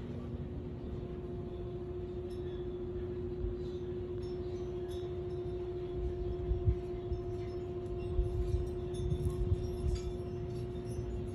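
A steady low hum with a fainter higher tone, under a low rumble that swells in uneven gusts in the second half, with a few faint clicks.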